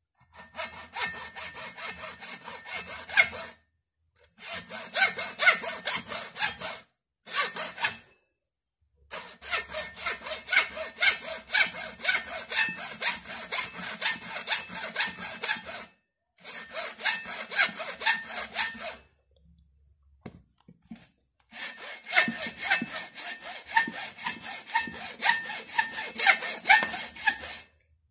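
Hand hacksaw cutting through the plastic case of a motorcycle battery, in runs of rapid back-and-forth strokes broken by several short pauses.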